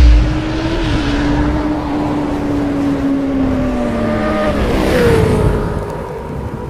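Sound effect of a sports motorbike engine for an animated intro: a deep boom at the start, then a steady high engine note that sags slightly, slides away about four and a half seconds in, and gives way to a higher note that fades out.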